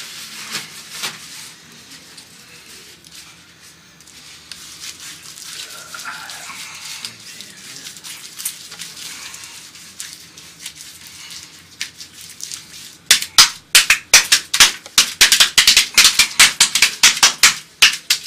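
Latex-gloved hand rubbing tanning cream onto an oiled bare back. Faint scattered clicks come first, then about two-thirds of the way in a dense run of loud, sharp, wet crackling clicks.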